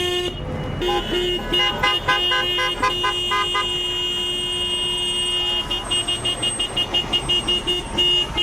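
Vehicle horns honking in a convoy: two horns overlap in quick beeps for the first few seconds, then one horn holds a long unbroken honk, then goes back to rapid toots of about three a second near the end.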